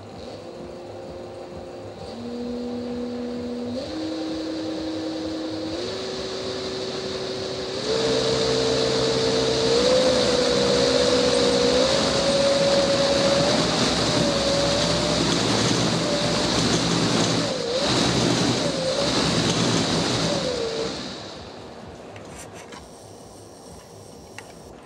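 A 250 W electric-scooter motor spinning a set of test rotor blades, its electric whine stepping up in pitch several times as the speed is raised, with a growing rush of noise from the spinning blades. From about 15 seconds in the pitch wavers, and a little after 20 seconds it winds down and the sound falls away.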